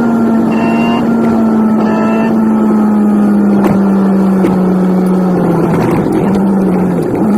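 Nissan 180SX engine droning while driving, sped up with the video, so it sounds like a high-pitched hum. Its pitch sinks slowly, then drops more steeply right at the end as the car slows.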